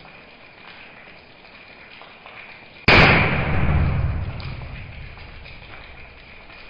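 One sudden bang from a homemade ballpoint-pen mini gun firing match heads, about three seconds in, fading out over about two seconds.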